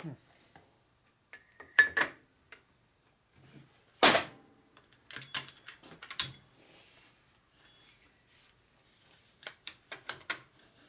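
Metal tool knocking as a fork bushing is driven into a motorcycle fork tube: a string of irregular sharp knocks, the loudest about four seconds in. The bushing is sticking and not going in.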